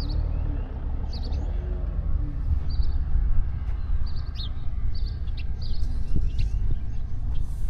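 Small birds chirping in short repeated calls over a steady low rumble of Mediterranean breeze and sea.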